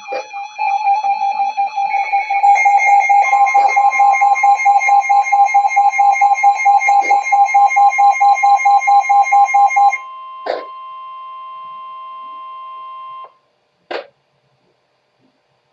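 Emergency Alert System alert tones: a loud electronic tone pulsing several times a second for about ten seconds, with a steady higher tone running alongside. A quieter steady tone follows and cuts off suddenly about three seconds later, then a short burst.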